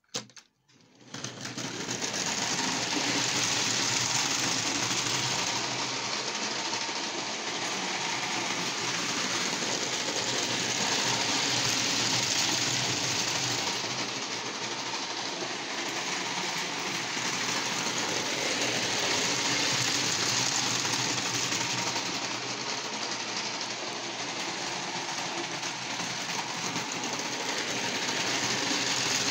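Hornby Type 501 clockwork 0-4-0 tinplate locomotive running on O gauge tinplate track: a couple of clicks as it is let go, then the steady whirr of its wound-up clockwork motor and the clatter of its wheels on the rails. The sound swells and fades every eight seconds or so.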